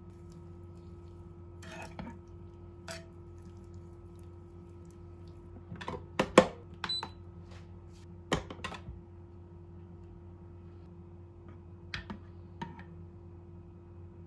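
A Sharp rice cooker being handled: scattered light clicks and knocks, with a louder clatter about six seconds in and a short high beep from the control panel about seven seconds in, over a faint steady hum.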